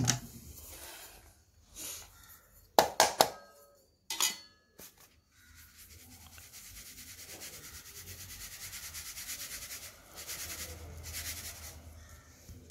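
A few sharp knocks and clinks as the steel mixer-grinder jar is handled, then a plastic sieve shaken with a fast, even rhythm as finely ground neem leaf powder sifts through it, a steady rustling hiss for several seconds.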